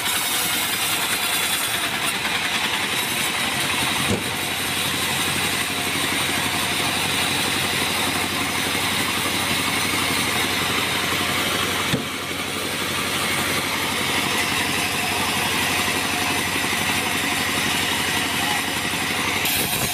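Bandsaw sawmill running steadily as its blade cuts through an acacia log, with a sharp knock about four seconds in and another about twelve seconds in.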